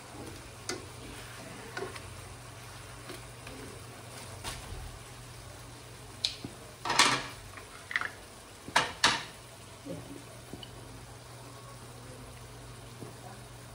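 Chicken simmering in sauce in a wok, with metal tongs knocking against the pan a few times, the loudest knocks about seven and nine seconds in, over a steady low hum.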